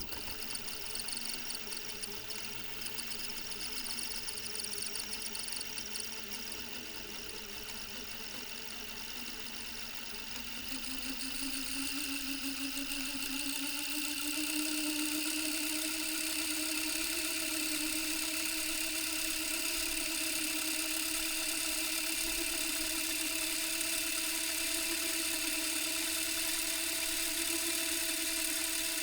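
Tape machine rewinding: it starts suddenly with a click, then a steady motor whir with a high hiss. Between about ten and fifteen seconds in it speeds up, rising in pitch and growing louder, then holds steady.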